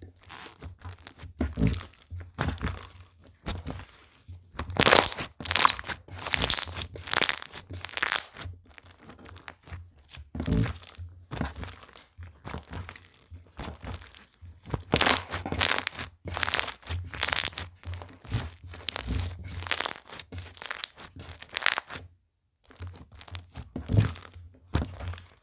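Slime being squeezed, poked and stretched by hand, giving irregular crunching and crackling with little pops. There is a short pause about 22 seconds in.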